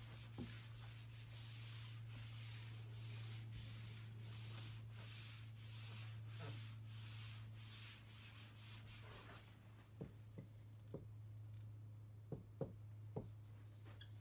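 Whiteboard being wiped clean with an eraser, in repeated rubbing strokes. After about nine and a half seconds this gives way to a dry-erase marker writing on the board in short, sharp tapping strokes.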